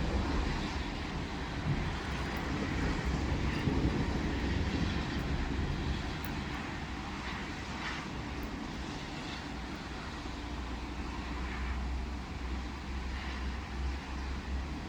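City street traffic on wet pavement: a steady low rumble with several vehicles passing, their tyres hissing on the wet road.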